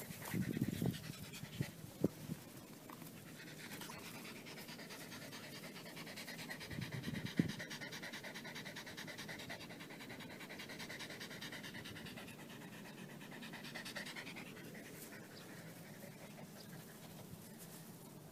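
Shiba Inu panting in quick, steady breaths with its mouth open, with a few knocks and scuffles in the first couple of seconds and a thump about seven seconds in.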